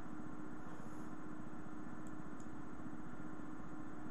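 Steady background hum and hiss with one constant low tone, with two faint ticks about two seconds in.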